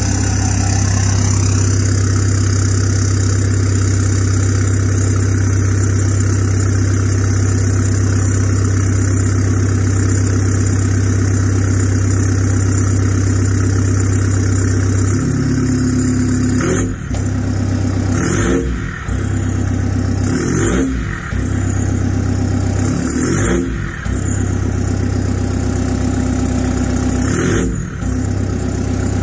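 VW Passat 2.0 common-rail TDI four-cylinder turbodiesel heard at the tailpipe of a 3.5-inch straight-pipe exhaust, idling steadily, then revved in about five quick blips in the second half.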